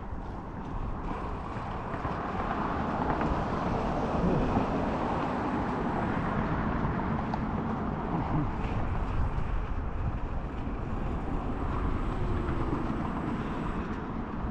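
Steady wind rushing over the microphone while riding a bicycle, with road traffic running alongside.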